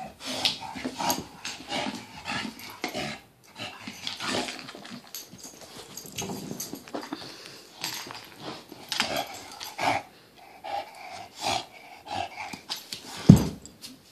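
English bulldog making a run of irregular vocal and breathing noises as it plays with a red rubber Kong toy. Near the end comes a single loud thud, the rubber Kong landing on the carpet.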